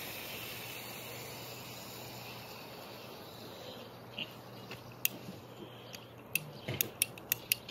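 Ratcheting PVC pipe cutter clicking as it is worked closed on a PVC water pipe: a run of sharp clicks in the second half, over a steady hiss.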